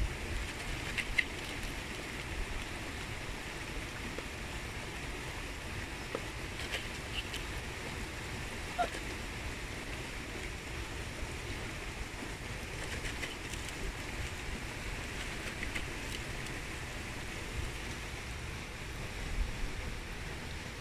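Steady outdoor water noise at the water's edge, with a few faint, short, high ticks a few seconds apart.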